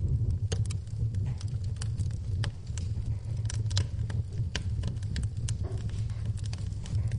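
Wood fire burning in a fireplace: a steady low rumble of flame with frequent, irregular sharp crackles and pops from the burning logs.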